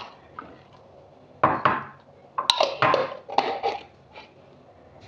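Glass jars and their metal lids clinking and knocking on a stone countertop as they are handled: a knock about one and a half seconds in, then a sharp click and a short run of clatters.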